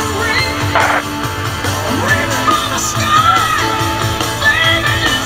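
Music with singing over a steady bass line.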